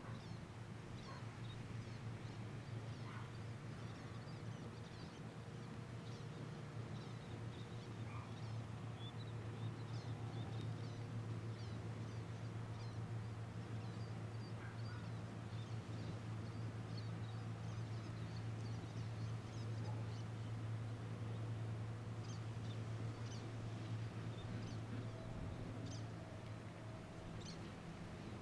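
Small birds chirping sporadically with short, high calls, over a steady low hum.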